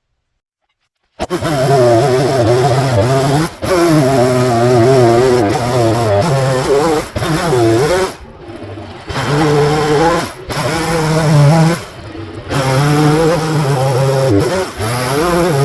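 Chainsaw engine cutting wood, starting suddenly about a second in. Its pitch rises and falls as the chain bites, and it eases off twice.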